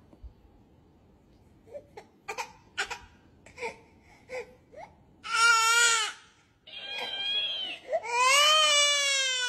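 Baby crying: a run of short whimpering sobs that builds into loud drawn-out wails, the longest near the end.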